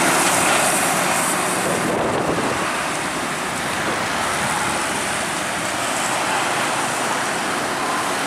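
Traffic passing on a wet road: a dump truck and cars going by with a steady hiss of tyres on wet asphalt.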